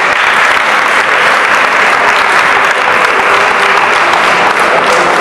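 Audience applauding steadily at the end of a round of an amateur boxing bout.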